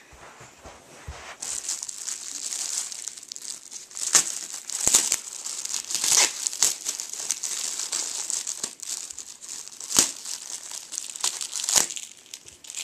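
Package wrapping being crumpled and torn open by hand: a steady crinkling from about a second and a half in, with several sharper, louder crackles along the way.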